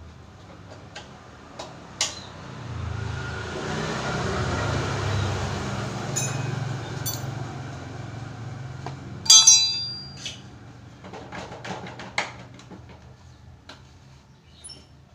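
Metal tools and engine parts clinking and knocking during a motorcycle engine teardown. About nine seconds in comes one loud ringing metal clank, with a smaller knock a few seconds later. A low rumble swells and fades over several seconds early on.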